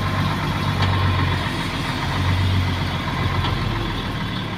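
The Isuzu Giga truck's 6WA1 six-cylinder diesel engine running at low, steady revs, heard from inside the cab as a steady low hum while the truck drives.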